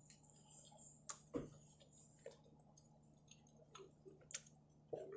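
Near silence with a few faint, scattered clicks: the small sounds of someone eating pizza and handling a slice on the plate.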